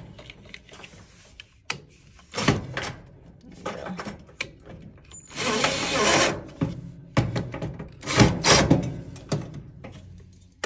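Cordless drill driving a screw into the dryer's sheet-metal heater housing, running in one burst of about a second near the middle. Around it come sharp knocks and clatter of the tool and parts against the metal, the loudest a little after the drill stops.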